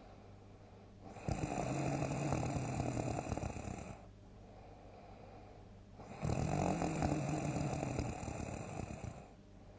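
A sleeping person snoring loudly: two long snores, each about three seconds, starting about a second in and again about six seconds in, with quieter pauses between.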